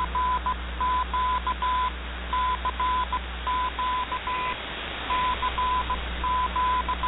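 Morse code sent as a keyed tone, long and short beeps spelling a CQ DX call over and over, received off shortwave with a steady background hiss and low hum.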